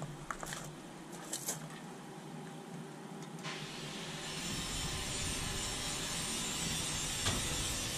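A few faint clicks, then a power tool starts running about three and a half seconds in and keeps going with a steady, even noise.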